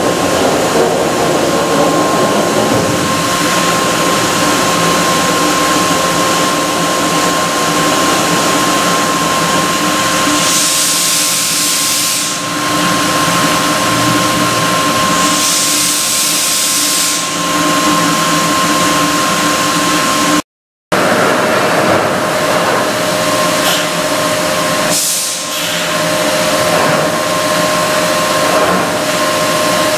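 Northwood CNC stone machining center running under power: a steady mechanical hum with a thin whine, and two bursts of air hiss about 11 and 16 seconds in. The sound drops out for a moment near 21 seconds, and the whine's pitch is different afterwards.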